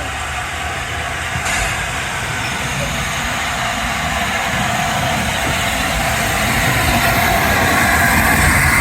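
Train running along the platform, a steady rumble growing slowly louder.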